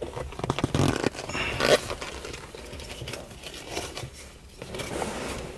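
Rubber shift boot being pulled up and off a manual gear lever: irregular rustling, rubbing and small clicks of rubber and plastic being handled.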